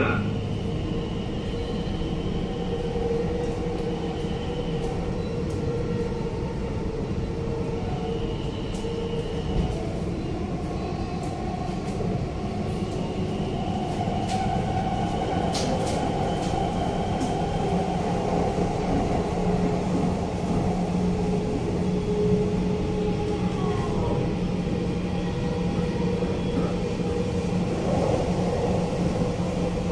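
Dubai Metro train running between stations, heard from inside the front car: a steady hum of motors and wheels on the rails, with a few light clicks in the middle stretch.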